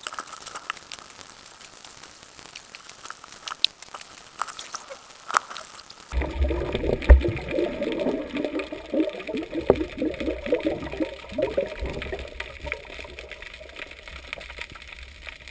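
Underwater sound heard through a GoPro's waterproof housing: scattered sharp clicks and crackles at first, then from about six seconds in a louder gurgling rush of water and bubbles with a low rumble as the diver swims along.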